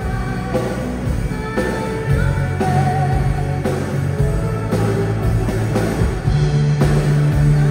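Rock band playing live: electric guitars over bass and drums, with some singing.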